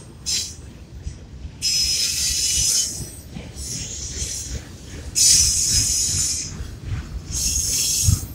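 Double-stack intermodal container cars of a freight train rolling past with a low rumble, their steel wheels squealing high-pitched three times.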